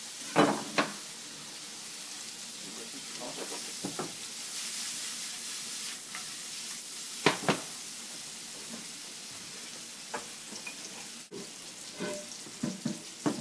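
Banana slices sizzling and frying in melted butter in a hot cast iron skillet, a steady hiss with a few sharp knocks as the pan and slices are handled: once near the start, twice in the middle and several times near the end.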